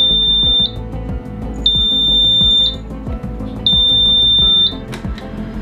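Alarm buzzer at the helm of a Nordhavn 55 trawler sounding three long, high beeps, each about a second long and two seconds apart: a warning alarm going off as the boat's systems are started up. Background music runs underneath.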